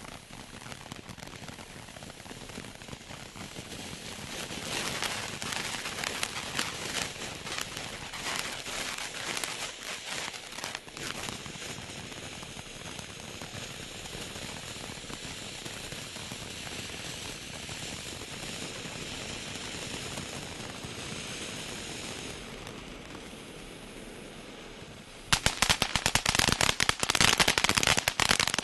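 Black Cat 1.21 Gigawatts firework burning as it throws up crackling sparks: a hiss with dense crackling from about four seconds in, a steadier hiss through the middle, then about 25 seconds in a sudden, much louder burst of rapid crackling like a string of firecrackers.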